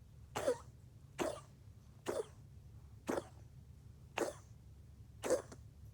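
A pet coughing over and over: six short coughs about a second apart, over a steady low hum.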